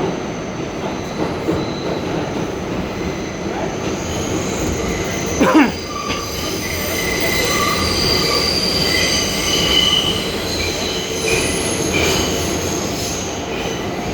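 R142A subway train running on the rails, its wheels squealing in several high, steady tones through most of the second half. A brief, loud sweep in pitch comes about five and a half seconds in.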